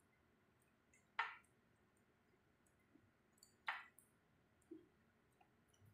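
Eating sounds from someone eating rice and fried fish by hand: mostly quiet, with two short, sharp mouth sounds about two and a half seconds apart and a softer one just after the second.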